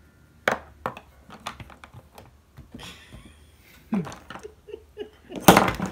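Clicks and taps of a makeup setting-spray bottle being handled, with a short spray hiss about three seconds in and a louder, sharper burst near the end.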